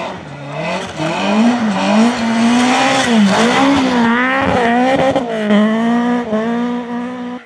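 Citroën C2 rally car's engine revving hard at high rpm, its pitch wavering up and down as the driver works the throttle through a sliding corner on snow, with a spray of snow and grit under the tyres.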